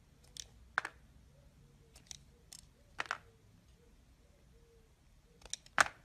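A utility-knife blade cutting into a bar of soap, giving a handful of short, sharp, crisp crunches as it bites in and pieces snap off. They come at irregular intervals, and the loudest is near the end.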